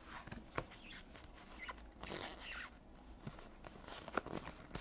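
Pokémon trading cards being flipped through by hand, sliding and flicking against each other in soft, irregular scrapes, with a longer scrape about halfway through.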